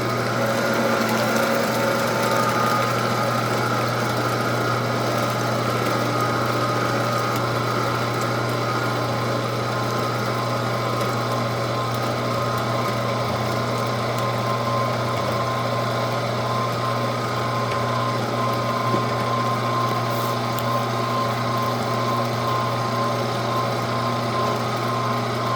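Weston #32 commercial electric meat grinder's 1.5 horsepower motor running steadily as raw meat and whole quail are ground, a constant low hum with a steady whine above it.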